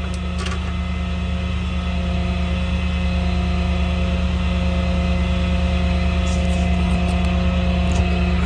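Tow truck engine running steadily, a low hum that grows slowly louder, with a few light clinks of tow chain.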